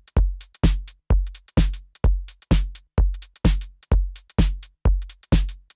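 Background music: an electronic drum-machine beat, a deep kick drum about twice a second with crisp hi-hat and snare hits between, with no melody.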